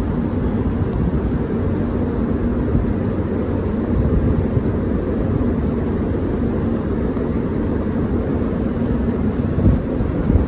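Strong sea wind buffeting the microphone on an open ship deck: a steady, heavy low rumble with a faint low hum beneath it, and a couple of brief soft thumps near the end.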